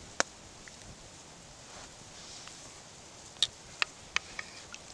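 Wooden spoon knocking against the side of a wooden bowl as it stirs a liquid: one sharp knock just after the start, then three quick knocks about three and a half to four seconds in.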